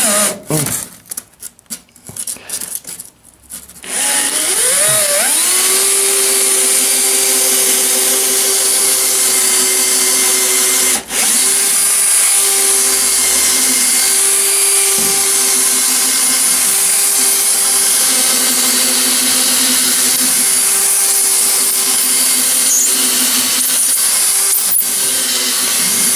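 Cordless drill boring a long bit through polystyrene floor insulation. The motor spins up about four seconds in and then runs steadily at full speed, with a brief drop about eleven seconds in. It stops near the end.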